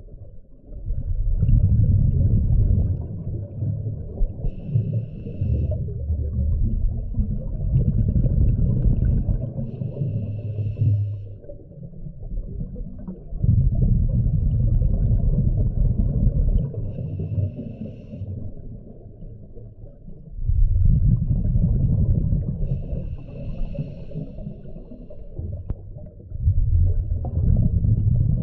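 Scuba diver breathing through a regulator underwater: a loud burst of exhaled bubbles every few seconds, with quieter stretches between breaths.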